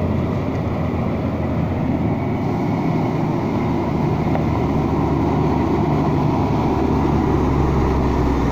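Diesel engine of a loaded 1974 Marmon dump truck running steadily with a deep, even drone.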